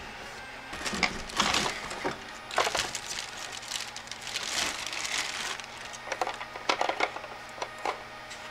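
Plastic packaging bag crinkling and rustling in bursts as the robot vacuum's charging dock is handled and pulled out of it, with a few sharper clicks near the end.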